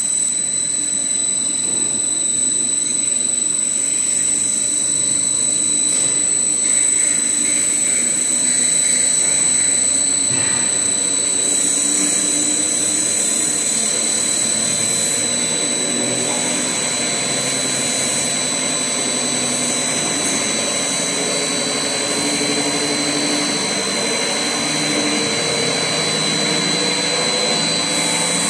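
Double-shaft paddle mixer running at low speed, its stainless paddles churning dry powder, with a steady whirring machine noise and a constant thin high whine.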